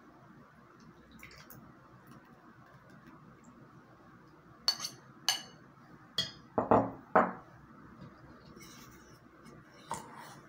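A metal fork clinking and knocking against bowls while mixing pancake batter: two sharp clinks about five seconds in, a louder cluster of four knocks over the next two seconds, and one more clink near the end.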